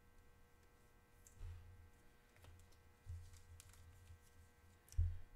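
Trading cards and hands being handled on a tabletop close to the microphone: three soft low thumps, the last and loudest near the end, with a few faint light clicks in between.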